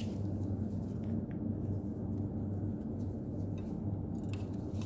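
Steady low background hum with a few faint metallic clicks and taps from hand tools on a rocker arm's valve adjusting screw and lock nut.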